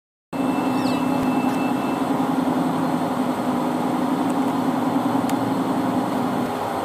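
Steady rushing drone of an airliner cabin in flight, engine and air-flow noise with a low hum under it, cutting in abruptly just after the start; the hum drops away near the end.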